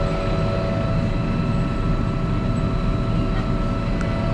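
Tractor engine running steadily, a continuous low drone with a constant whine above it.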